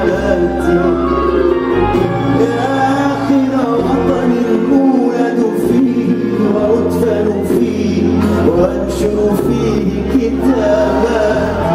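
A man singing live Arabic music with a band, over a steady bass line and a dense bed of sustained notes.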